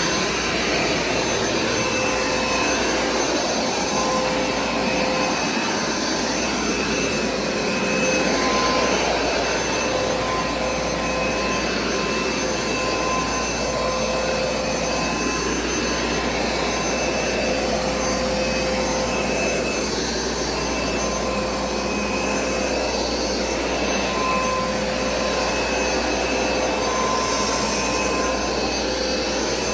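Hoover SmartWash carpet cleaner running steadily: its suction motor gives a constant rush of air with a steady high whine over it.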